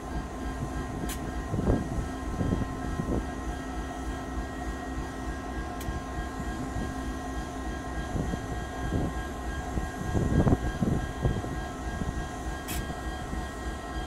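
EMD SD75I locomotive's 16-cylinder two-stroke diesel running steadily with a low rumble and steady whining tones, after being fired up again by its SmartStart automatic start system. A few short louder swells come and go, and there are three faint sharp clicks.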